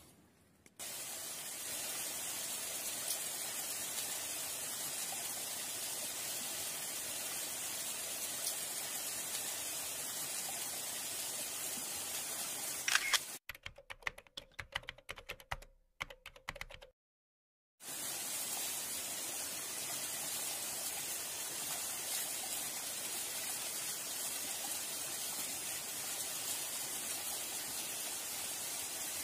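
Steady hiss of rain falling, broken for about four seconds midway by choppy dropouts and a moment of silence.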